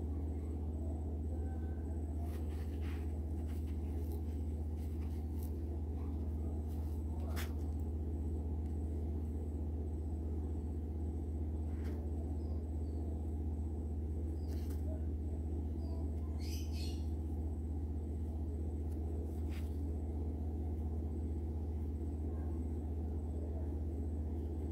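Steady low hum throughout, with a few faint scratches and clicks from scissor tips poking polyester fiberfill into a crocheted amigurumi head.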